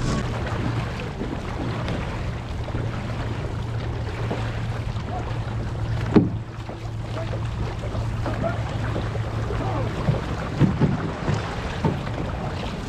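Outrigger canoe under paddle: water splashing and rushing past the hull, with wind on the microphone and a steady low hum that stops about ten seconds in. A single sharp click a little after six seconds, and a few short splashes near the end.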